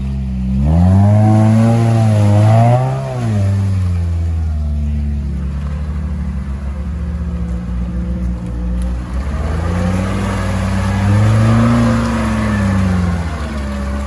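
A Niva 4x4's engine revving as it drives off-road. The pitch rises about a second in, holds, and drops back near three seconds; the engine runs steadily, then revs up again around eleven seconds.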